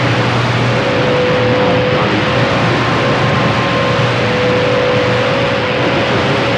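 CB radio static: a steady loud hiss on an open channel, with thin whistling tones that come and go.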